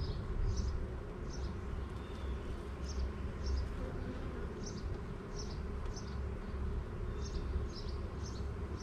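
Honeybees buzzing around an open Langstroth hive, a steady low hum, over a low rumble. Short high chirps repeat about every half second to second throughout.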